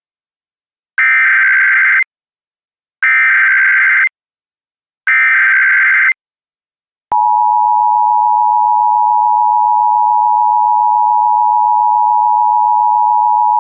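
Emergency Alert System SAME header: three one-second bursts of warbling digital data tones, about a second apart. About seven seconds in, the steady two-tone EAS attention signal starts, which announces an emergency alert message.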